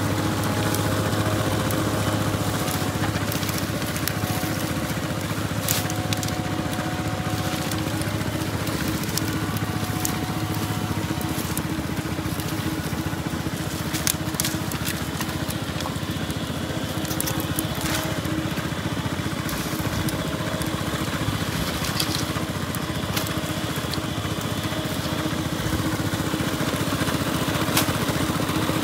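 A small engine driving a water pump runs with a steady drone, while dry branches crackle and snap now and then as brush is dragged off a pile.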